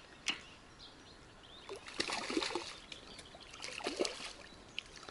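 Water splashing in two short spells as a hooked crucian carp thrashes at the surface of a small river.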